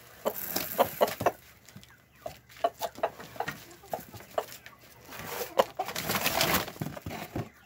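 A hen clucking and pecking at feed in a plastic feeder, with many short sharp taps. A stretch of louder rustling comes near the end.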